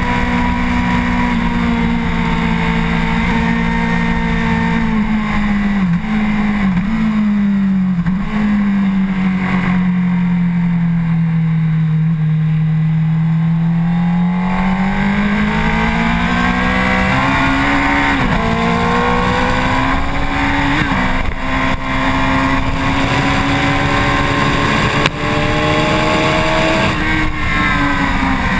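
Honda CBR1000RR inline-four sport-bike engine at full track pace, heard from the tank with heavy wind rush. The engine note falls through quick downshifts as the bike brakes, sinks lowest through a slow corner, then climbs through upshifts back to high speed and eases off near the end.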